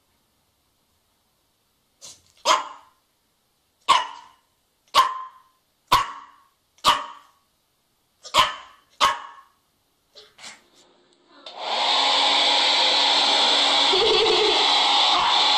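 A dog barking, about seven sharp barks roughly a second apart with a pause after them. Then a hair dryer switches on about three-quarters of the way in and keeps running with a steady blowing noise.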